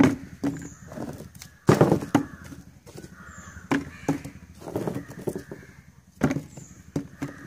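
Pieces of red brick being set into a plastic bucket by hand, knocking against each other and the bucket's bottom and sides in a series of irregular clunks.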